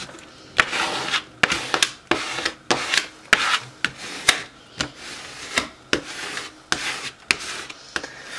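Plastic scraper rubbed in repeated short strokes over transfer tape on a vinyl stencil laid on a wooden round, burnishing the stencil down so it sticks flat and smooth.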